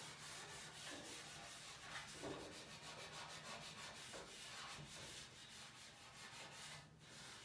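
Faint, steady scrubbing of a stove surface with a wet SOS steel wool soap pad, in quick repeated back-and-forth strokes.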